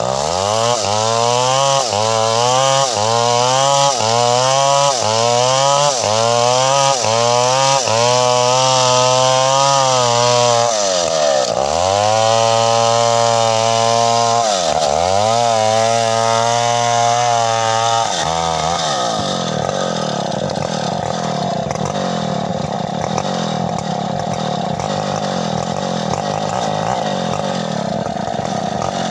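New West two-stroke chainsaw running at high revs. For the first eight seconds its pitch dips and recovers a little more than once a second, then it holds steady and dips deeply twice. After about 18 seconds it settles into a lower, rougher, steady sound.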